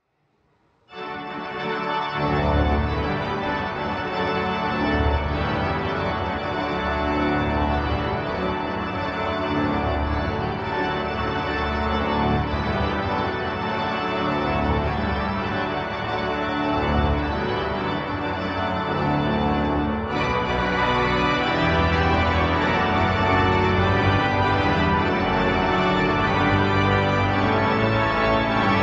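Maarschalkerweerd/Adema church pipe organ played loud on tutti stops: sustained full chords over deep pedal notes, entering about a second in. The sound grows brighter about twenty seconds in.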